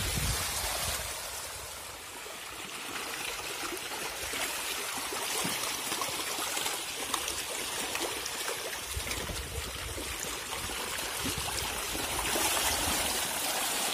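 Water churning and splashing as a dense mass of hybrid magur catfish thrash at the surface while feeding, over a steady rush of water from a hose pouring into the tank; many small splashes in a continuous wash.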